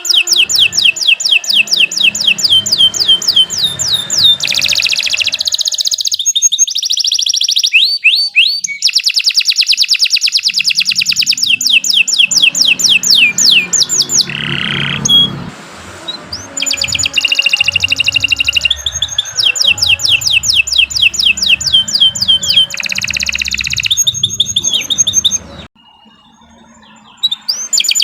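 Domestic canary singing long, rapid trills of fast-repeated high notes, switching between note types with brief breaks. The singing stops for about two seconds near the end, then resumes.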